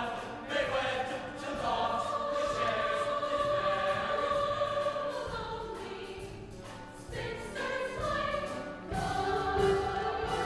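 A musical-theatre chorus sings with orchestral accompaniment, holding long notes. The sound thins briefly past the middle, then a fuller entry comes in near the end.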